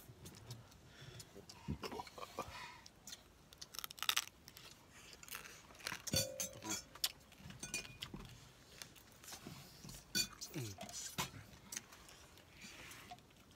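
Eating sounds: scattered clinks of a spoon against a plate and chewing, in short irregular clicks.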